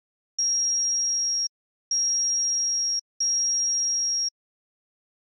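Three long, high electronic beeps, each about a second long with short gaps between, stopping about four seconds in.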